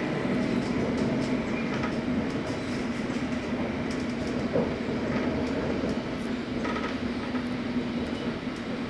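A London Underground S8 Stock train running at speed in a tunnel, heard from inside the carriage: a steady rumble of wheels on rail with a constant hum, and a few light clicks.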